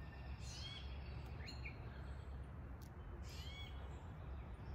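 Birds calling: two high sweeping calls about three seconds apart, with a short rising chirp between them, over a low steady outdoor rumble.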